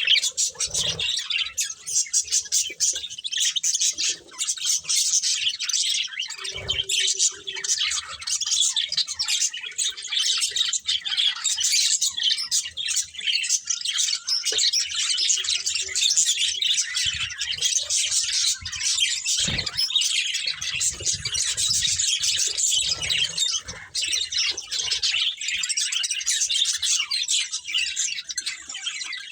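Several budgerigars chirping and chattering rapidly without pause, with two short knocks, about a quarter of the way in and again about two-thirds in.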